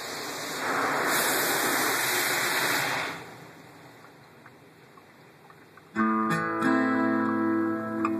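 Car wash water spray hissing onto the car, heard from inside the cabin, stopping about three seconds in. About six seconds in, music with held guitar chords comes in.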